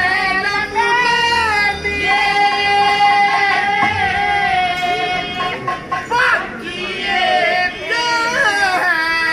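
Haryanvi ragni singing: a voice holding long, wavering melodic notes over a steady held instrumental tone.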